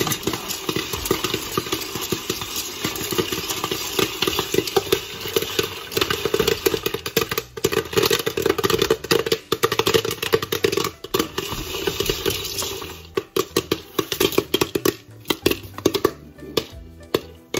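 Popcorn kernels popping in a covered stovetop Whirligig popper, a dense run of sharp overlapping pops that thins out to fewer, separate pops in the last few seconds as the batch finishes.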